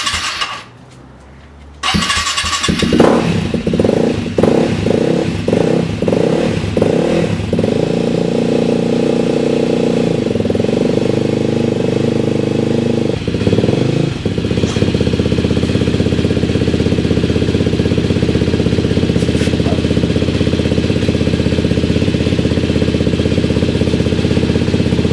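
2013 KTM 250 EXC-F single-cylinder four-stroke engine, freshly rebuilt top end, started for the first time. It cranks briefly, pauses, cranks again and catches about two seconds in. It fires unevenly for a few seconds, sags once around the middle, then settles into a steady idle.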